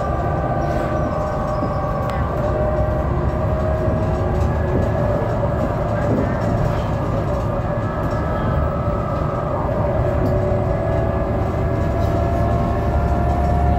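BredaMenarinibus Avancity city bus under way, heard from inside the passenger cabin: a low drivetrain and road rumble with thin, steady mechanical whines over it that drift slowly in pitch, one rising gently near the end as the bus gathers speed.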